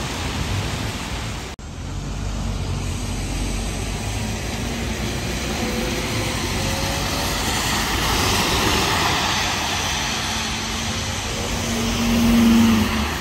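London buses and traffic on a rain-soaked road: engine noise and the hiss of tyres on wet tarmac, swelling as vehicles pass, loudest near the end with a steady humming tone.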